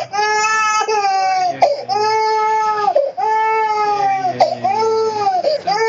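Baby crying hard: about five long wails of roughly a second each, with quick catches of breath between them.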